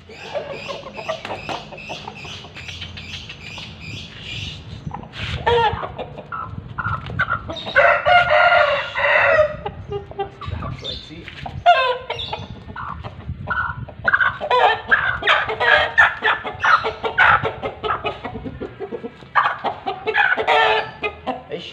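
Bangkok game chickens clucking and calling. A run of quick, even clucks comes first, then a loud drawn-out call about eight seconds in, and bursts of calls again through the second half.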